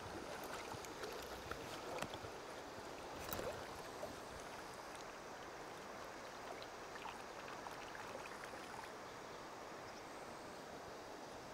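Steady rush of flowing river water, with a few light clicks in the first few seconds.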